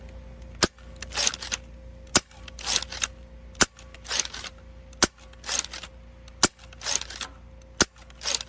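SLAB 3D-printed lever-action half-dart blaster fired about six times in a steady rhythm, roughly one shot every second and a half. Each sharp snap alternates with the clattering stroke of the lever being cycled.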